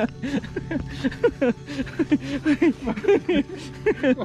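Indistinct talking: a voice's quick syllables continue throughout, over a steady low hum.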